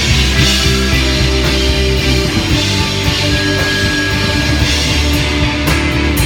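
Small rock band playing live: electric guitars, bass guitar and drum kit, with a quick run of drum hits near the end.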